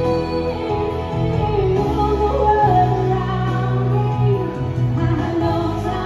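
Two female vocalists singing live into microphones over instrumental backing music.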